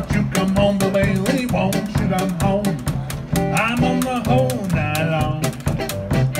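Small acoustic jazz band playing an upbeat swing-style tune: an upright-bass line under a steady, clicking percussion beat, with a wavering melody on top.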